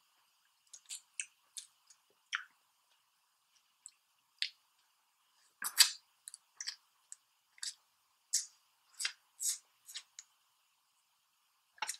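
Crab legs being cracked and eaten by hand: a string of sharp shell crackles and wet mouth smacks with short gaps between, the loudest about six seconds in.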